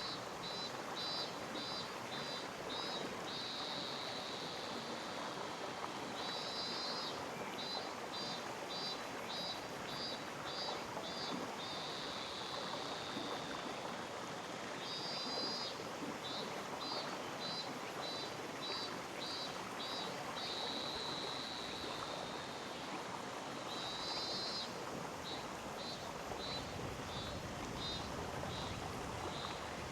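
Mountain stream flowing steadily. Over it, a high-pitched call repeats about every nine seconds: a quick rattle, a run of evenly spaced pulses about two a second, then a buzz lasting a couple of seconds.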